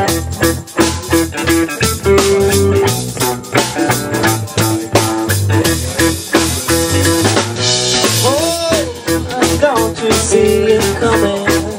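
Background music: an upbeat band tune with guitar and drum kit on a steady beat.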